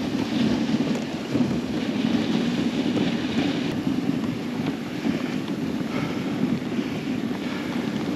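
Dog sled moving over packed snow: a steady rushing noise of the runners on the trail, with wind buffeting the microphone.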